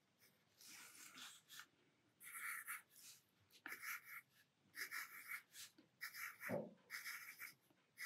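Pencil drawing short strokes on paper, sketching small leaves: a faint series of scratchy strokes, roughly one a second.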